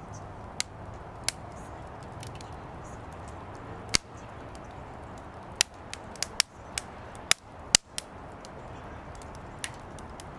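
Firewood burning in a fire pit, crackling with irregular sharp pops over a steady low rush of flame. The pops come in a cluster about halfway through, the loudest near the end.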